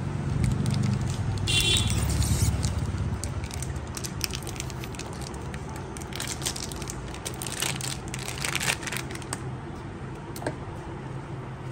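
Clear plastic wrapping on an ink bottle crinkling and tearing as it is pulled open by hand, with scattered crackles and clicks. A steady low hum runs underneath.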